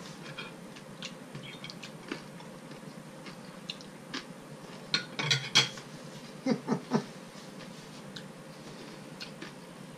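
Fork and knife clinking and scraping against a plate while eating, a few light clicks with a cluster of louder clinks about five seconds in.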